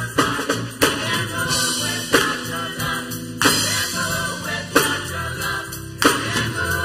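Upbeat gospel praise music with singing and a band, driven by a strong, steady beat.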